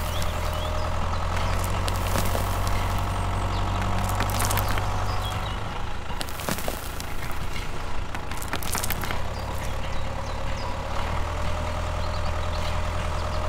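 A small motor running steadily with a low hum and a constant whine, with a few sharp clicks along the way.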